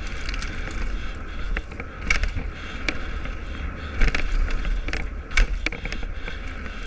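Mountain bike rolling fast down a loose gravel trail: tyres crunching over stones with frequent sharp knocks and rattles from the bike over bumps, the loudest about four and five and a half seconds in. Wind buffets the camera's microphone with a steady low rumble.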